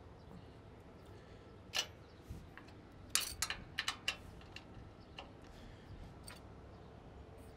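Ratchet wrench clicking as a very tight bolt is worked loose: one sharp click about two seconds in, then a quick run of about six clicks around three to four seconds in, with a few fainter ticks after.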